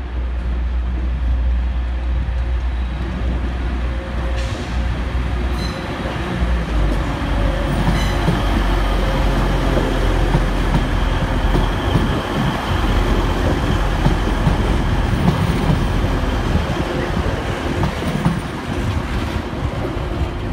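TransPennine Express Class 185 diesel multiple unit passing close by along a platform line, its Cummins diesel engines running under the cars with the rumble of wheels on rail. A couple of sharp clicks sound about 4 and 8 seconds in.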